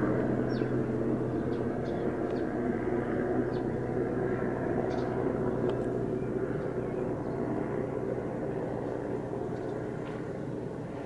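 Eurocopter EC145 twin-turbine helicopter flying past and moving away, its steady rotor and turbine drone slowly fading.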